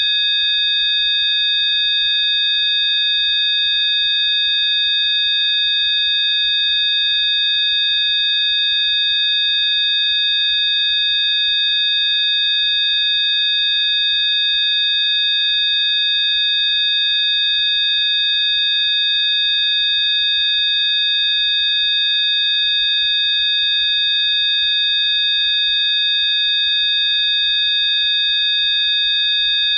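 Electronically generated Rife frequency tones: several steady, high-pitched pure tones sounding together without change, with a faint hiss around them.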